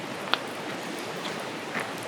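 Wood campfire burning with a steady hiss and crackle, one sharp pop about a third of a second in and a couple of smaller snaps later.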